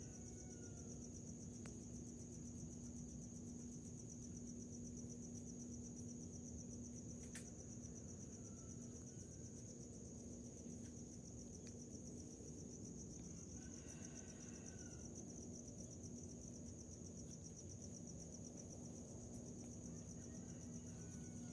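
Faint, continuous high trilling of night insects, likely crickets, with a steady low hum underneath.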